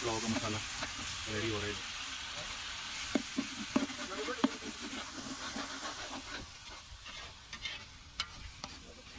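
Tomato-and-onion masala sizzling steadily in hot oil in a large aluminium pot while a metal spoon stirs it, with a few spoon clicks against the pot, most of them around the middle.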